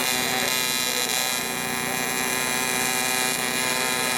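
TIG welding arc buzzing steadily on an aluminum cylinder head as the blown-out side is built up with 4043 filler rod.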